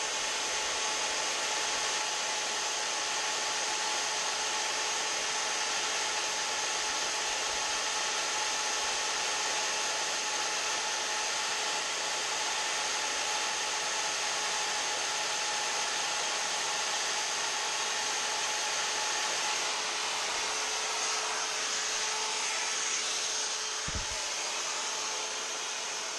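Handheld rotary tool running at high speed with a steady whine, its bit engraving numbers into a thin aluminium plate. A short low knock about 24 seconds in.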